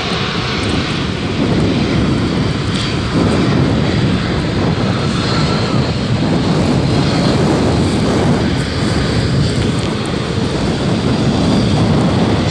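Airbus A380's four jet engines running, a steady loud noise with no breaks.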